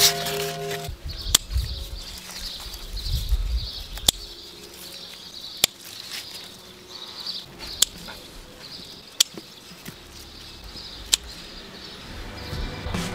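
Sharp snips of garden scissors cutting cucumber and tomato stems, seven or so spaced a second or two apart, over a steady, pulsing high chirping in the garden.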